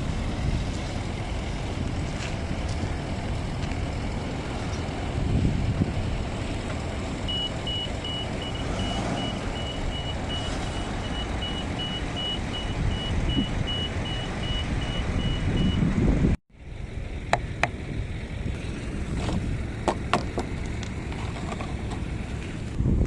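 Steady low rumble of a vehicle, with evenly spaced high-pitched reversing-alarm beeps sounding for about eight seconds midway. The sound drops out for a moment, then a few sharp clicks follow.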